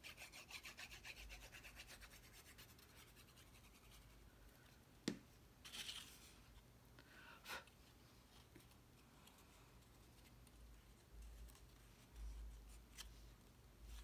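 Faint rubbing and scraping of cardstock by hand, a quick run of fine strokes over the first few seconds. Then a sharp tap about five seconds in, and a few soft paper rustles as the pieces are handled.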